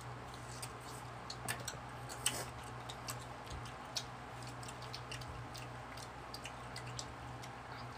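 Mouth sounds of eating ripe mango: scattered small wet clicks and smacks of chewing at irregular intervals, over a steady low hum.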